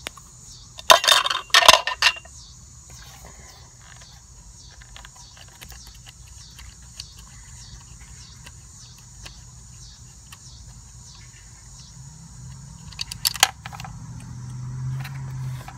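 Metal clinking from the carburetor's mounting nuts and wrench being handled: a loud cluster of clinks about a second in, faint ticks while the nuts are spun off by hand, and another short burst of clinks near the end. A low hum builds over the last few seconds.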